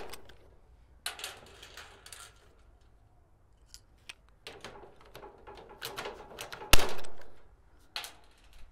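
Hand rivet gun being worked on a blind (pop) rivet in a metal door hinge: clicking and rattling as the handles are squeezed, then a sharp snap about seven seconds in as the rivet sets and its mandrel breaks off, and another click about a second later.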